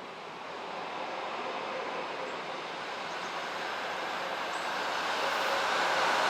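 A train approaching on the rails, its running noise growing steadily louder.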